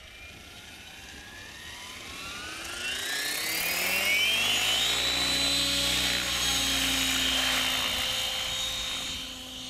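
Blade 700X electric RC helicopter spooling up: the whine of its E-flite 700 brushless motor, geartrain and rotor rises steadily in pitch for about four seconds, then holds at flying head speed with the rotor blades chopping the air. It dips a little near the end as the helicopter lifts off.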